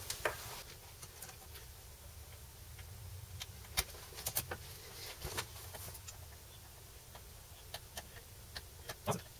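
Scattered small clicks and taps as small metal guitar hardware is handled and fitted into a solid electric guitar body by hand, over a low steady background hum.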